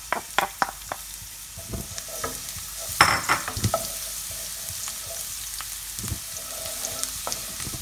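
Minced garlic sizzling in hot oil in a stone-coated wok, stirred with a wooden spatula that knocks and scrapes against the pan. Several sharp taps come in the first second and a louder knock about three seconds in, over a steady frying hiss.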